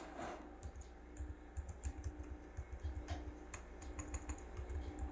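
Faint, irregular key clicks from typing on the Asus Eee PC 701's small laptop keyboard as a shell command is typed in.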